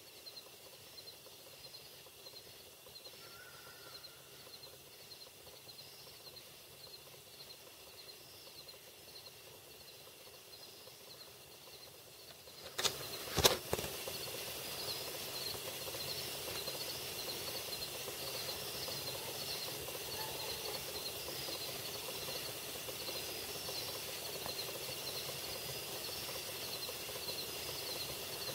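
Early-morning outdoor ambience: a rapid, evenly repeating high chirping over a steady hiss from a camera's microphone. About 13 seconds in come two sharp knocks, after which everything is louder.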